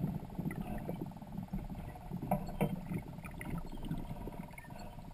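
Muffled underwater sound picked up by a submerged camera: water churning in a low rumble, with a steady buzzing hum over it. Two sharp knocks come a little after two seconds in.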